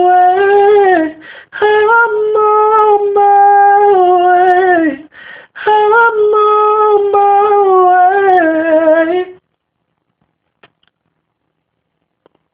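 Unaccompanied wordless singing: three long held phrases, each sliding down in pitch at its end, with a breath drawn between them. The voice stops about nine seconds in.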